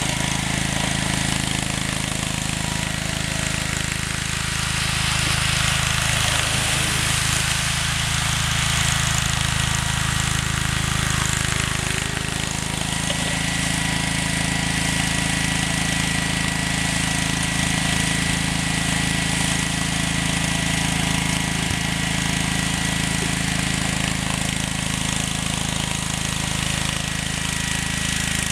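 1978 Wheel Horse C-101 garden tractor's single-cylinder engine running steadily while the tractor pushes wet snow with its front plow blade, with a faint steady high whine over it.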